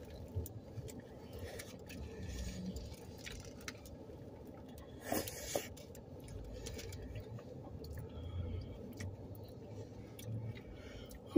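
Quiet chewing and wet mouth sounds of people eating burritos, with small clicks and the crinkle of foil wrappers; a louder crinkle about five seconds in.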